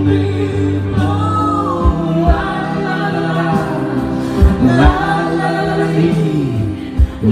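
Live acoustic band music with male and female voices singing together over held bass notes, marked by a few sharp low thumps like drum hits.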